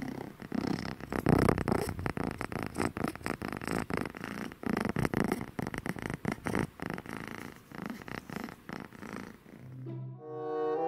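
Domestic cat purring close to the microphone: a continuous rough, fast-pulsing purr that swells and fades with each breath. Music comes in near the end.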